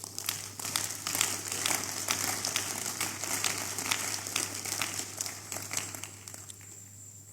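Large congregation applauding: dense, irregular clapping that swells in the first second and dies away over the last couple of seconds.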